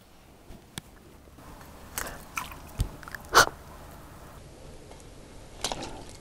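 A few sudden splashes and knocks in shallow water as a lunge at a mud crab misses. The loudest comes about three and a half seconds in and another near the end.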